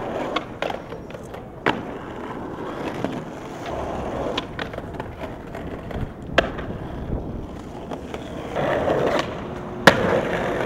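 Skateboard wheels rolling over stone paving, broken by several sharp wooden clacks of tail pops and landings. The loudest clack comes near the end.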